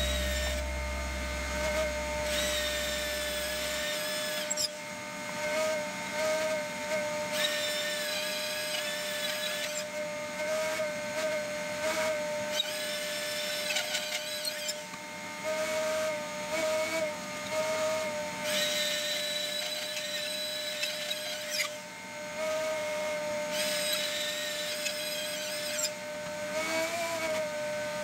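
Electric drill turning a hollow core bit that cuts into a concrete floor. The motor runs steadily, with a harsher grinding that comes and goes every few seconds as the bit bites into the concrete.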